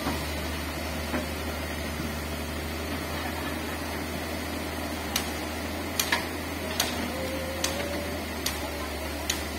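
Large tracked excavator's diesel engine running steadily with a low drone while it loads sand into a dump truck. From about halfway in, sharp ticks come roughly once a second.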